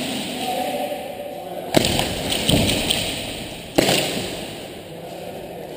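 Two sharp thuds about two seconds apart, each followed by a brief ringing echo as in a large empty hall.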